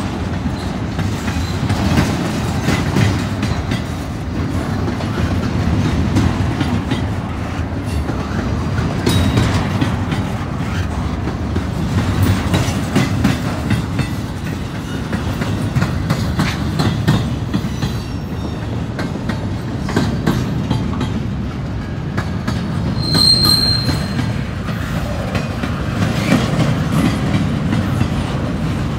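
Double-stack intermodal freight train's well cars rolling past: a steady rumble with the clickety-clack of steel wheels over the rail, and a brief high squeal about two-thirds of the way through.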